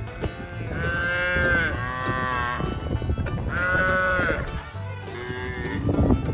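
A cow mooing twice: two long, drawn-out calls, the first longer than the second.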